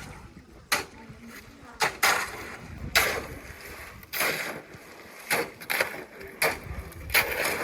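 An irregular series of sharp knocks and short scrapes, about one a second, as of tools or objects being worked by hand.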